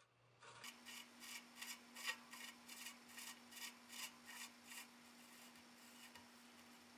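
Drive-side cup of an SRAM external bottom bracket being threaded by hand into an English-thread frame shell, turning in reverse: faint, short metal-on-metal strokes, about three a second, dying away about five seconds in.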